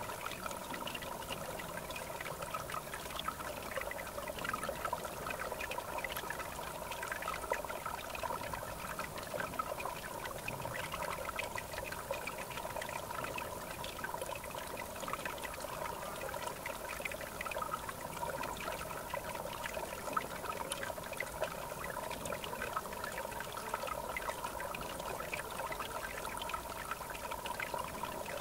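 River water flowing and trickling steadily, a continuous babbling with no letup.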